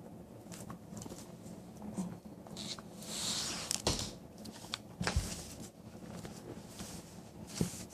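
Rustling and handling noise with a few sharp clicks and knocks, the strongest about four seconds in, about five seconds in and near the end.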